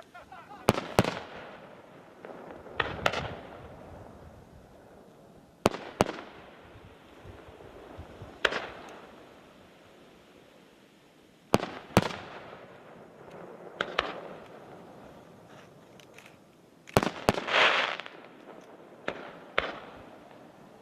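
Aerial fireworks shells bursting: a dozen or so sharp bangs spaced a few seconds apart, several in quick pairs, each trailing off in an echoing rumble. About three-quarters of the way through, a burst of dense crackling follows a pair of bangs.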